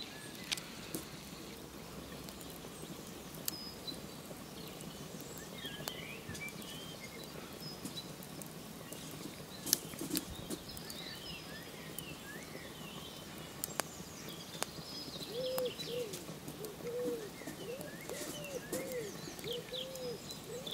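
Quiet outdoor ambience with small birds chirping and twittering throughout. In the last five seconds or so a dove coos in a steady series of repeated calls. A few faint sharp clicks sound here and there.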